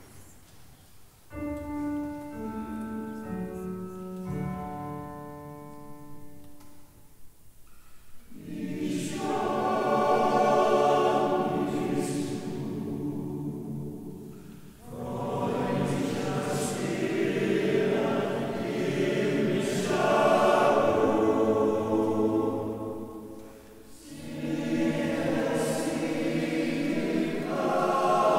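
A short digital piano introduction of single stepped notes, then a male voice choir singing in full harmony in long phrases, with brief breaks between them, in a very reverberant church acoustic.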